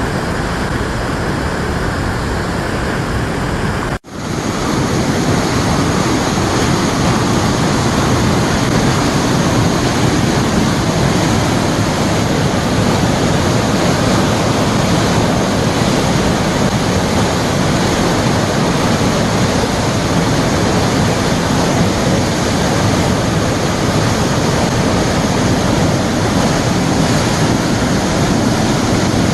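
Waterfall swollen by heavy rain: a loud, steady rush of falling water. About four seconds in it cuts out for an instant and comes back a little louder.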